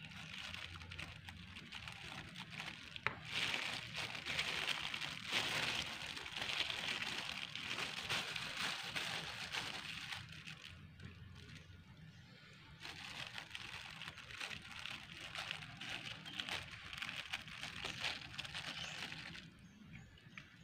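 Thin plastic sheet crinkling and rustling in the hands as spiced grated coconut is pressed around skewered beef, with occasional light clicks of a metal spoon against the bowl. The rustling eases off for a couple of seconds about halfway through.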